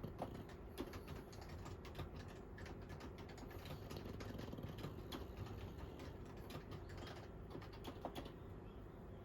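Typing on a computer keyboard: a steady run of key clicks, with a short pause near the end.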